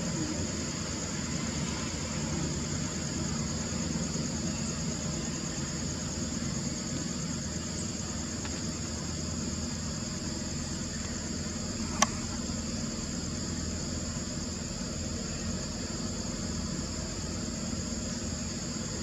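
Steady outdoor ambience: a high, even insect drone over a low steady rumble, with one sharp click about twelve seconds in.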